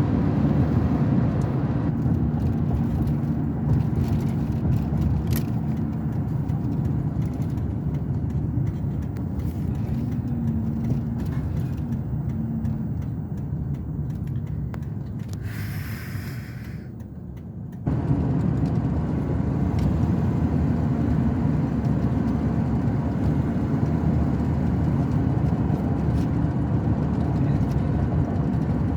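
Truck being driven: steady engine and road rumble heard from inside the cab. It eases off for a few seconds about two thirds of the way through, then comes back suddenly.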